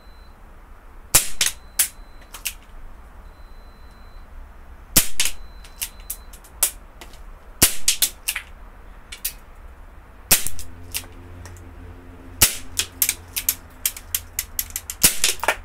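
Low-power pellet gun firing about thirty sharp shots into a tablet, some singly and some in quick runs, coming faster near the end.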